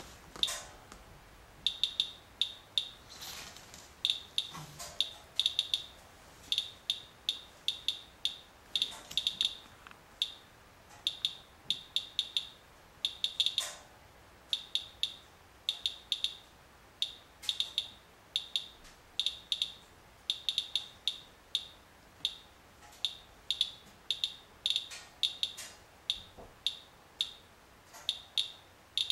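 Radalert Inspector Geiger counter chirping with its audio on: short high chirps at random, uneven intervals, a few a second. Each chirp is one detected count from a paper-towel wipe of rain-wet vehicle grime, and the rate is above normal background.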